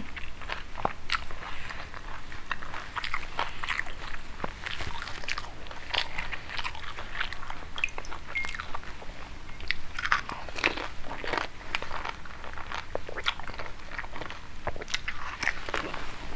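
Close-miked biting and chewing of crisp fried panipuri (golgappa) shells filled with spiced water: repeated sharp crunches with chewing in between.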